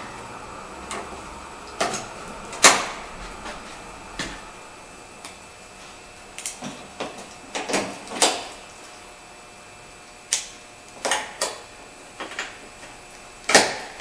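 Plastic push-pin clips being pressed into the front grille and bumper trim of a Honda Civic, locking in place with a dozen or more sharp, irregularly spaced clicks and snaps, two of them louder.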